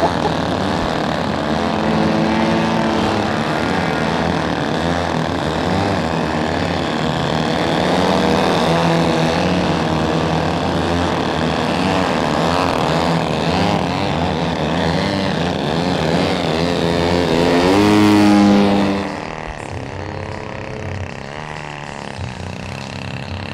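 Engines and propellers of several giant-scale RC aerobatic airplanes running together, their pitch wavering up and down as the throttles are worked to hold the planes hovering nose-up. About 18 seconds in one engine rises to a high, loud peak, then the sound drops sharply.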